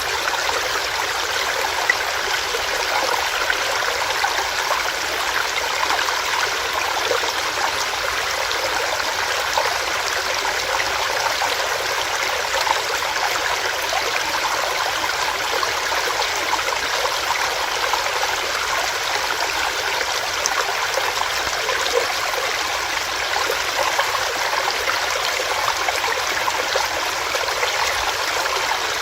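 Small stream running over rocks, a steady babbling rush of water.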